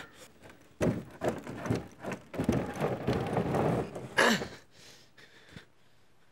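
A run of knocks and thumps, then a denser stretch of scraping and rustling, ending with one loud sharp sound about four seconds in.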